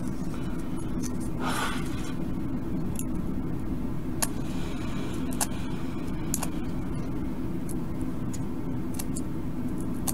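Small sharp clicks and ticks, scattered and irregular, of thin LED wire leads being handled and bent by fingers, over a steady low hum.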